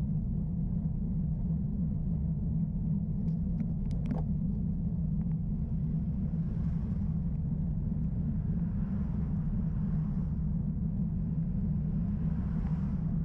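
Steady low rumble on a bicycle-mounted camera riding up a lane, with a few light clicks about three to four seconds in. Oncoming cars pass three times as soft swells of tyre and engine noise, about six seconds in, around nine seconds, and near the end.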